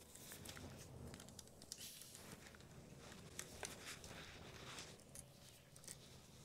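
Near silence, with a few faint small clicks and ticks of hands working a bicycle rim-brake caliper and its steel brake cable.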